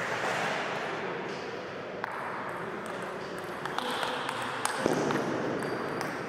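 Table tennis rally: the celluloid ball clicks sharply off the bats and the table, a few separate hits, most of them in the second half, over steady background noise from the hall.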